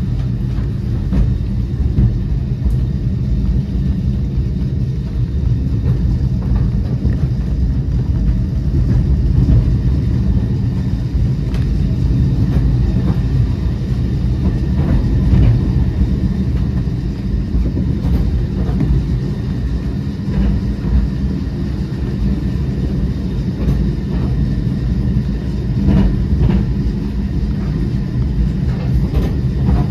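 Great Orme Tramway cable-hauled bogie tram car running on its street track: a steady low rumble of the car on the rails and the cable running in its slot, with a few faint clicks and knocks scattered through.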